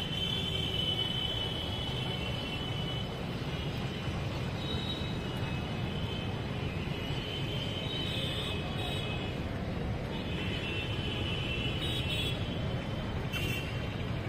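Steady low rumble of distant traffic, with high-pitched bird calls coming and going in short spells of a second or two.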